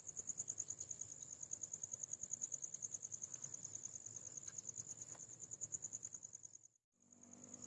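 Crickets chirping in a steady, rapidly pulsing high trill. All sound cuts out briefly near the end.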